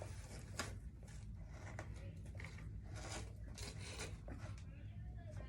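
Faint, irregular rustling and rubbing of things being handled, over a low steady hum.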